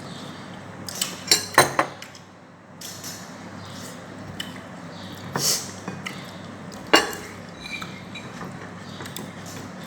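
Cutlery clinking against a plate while eating: a quick cluster of clinks about a second in, a softer scrape in the middle and one sharp clink later, over a steady low hum.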